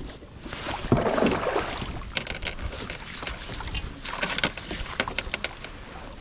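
Water sloshing and splashing around a kayak, with clusters of sharp clicks and a solid knock on the hull about a second in, and wind on the microphone.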